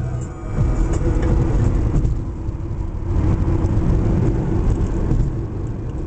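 Steady low rumble of a moving car's engine and tyres on the road, heard from inside the car.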